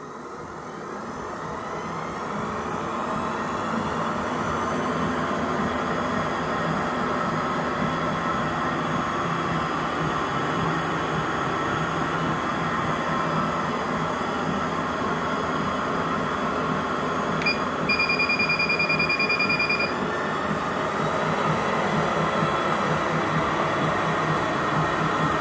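Repaired 5-horsepower treadmill's motor and belt speeding up with a rising whine over the first few seconds, then running steadily at speed. About two-thirds of the way through, a single electronic beep and then a quick string of beeps.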